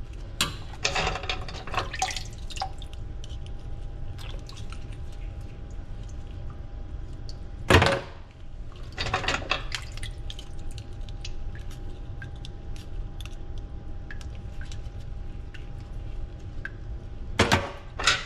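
Water dripping and splashing in a pot of crown conchs in a stainless sink, with small clicks of a metal pick against the shells as the meat is picked out, and a faint steady hum underneath. A loud sudden sound about eight seconds in, and splashing near the end as a hand goes into the water.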